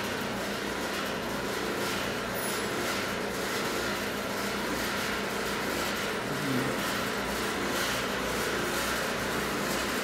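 Rotating PTFE sintering oven running, its tray rack turning: a steady machine hum under an even hiss.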